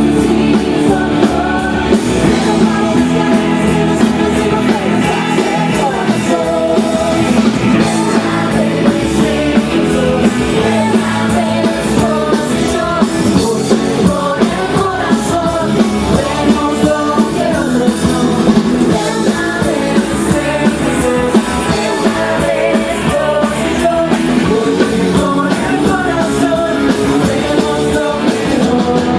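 A live pop-rock band playing with a singer's voice, with full drums and guitar, as at a sound check.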